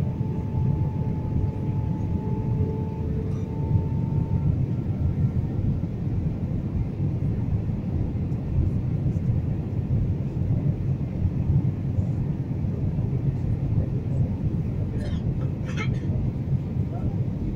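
Airliner cabin noise in flight: a steady low roar of engines and airflow, with a thin steady whine that stops about four seconds in. A few faint short sounds near the end.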